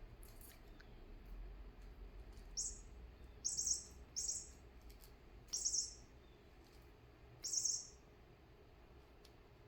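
A cat hissing in five short, sharp bursts spread over about five seconds: a defensive warning at another cat.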